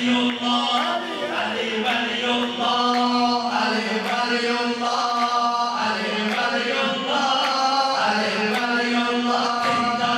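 A man chanting a Shia religious elegy (mersiyye) into a microphone in long, held notes, with other men's voices singing with him. A regular beat of hand strikes sounds about once a second.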